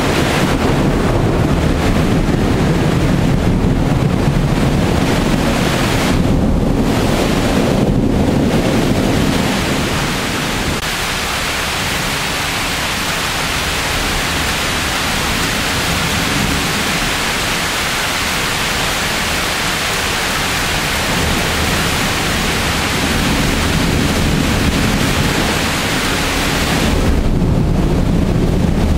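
Heavy rain pouring steadily during a thunderstorm. A deep rumble sits under it for about the first ten seconds, eases off, and returns near the end.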